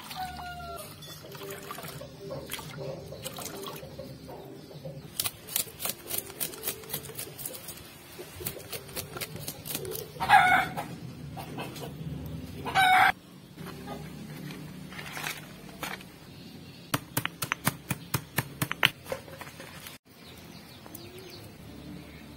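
A chicken clucking loudly twice, about ten and thirteen seconds in, each call about half a second long. Between the calls come runs of quick sharp clicks from hand work.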